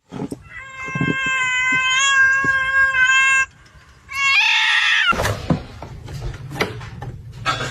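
A cat meowing: one long, drawn-out meow held on a nearly steady pitch for about three seconds, then a shorter meow that falls in pitch about four seconds in.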